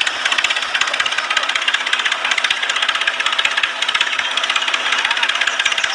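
A small motor running steadily with a fast, even rattle, typical of the toy tractor's battery gear motor.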